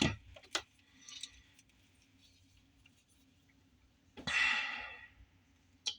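A person breathes out heavily, like a sigh, for about a second, fading away. A few small handling clicks come before it and one sharp click just before the end.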